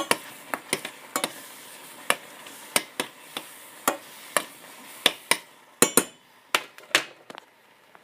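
A spoon clinking and knocking against a cooking pot as thick rolled oats are stirred, sharp irregular clinks about every half second, over a steady hiss that fades about five seconds in.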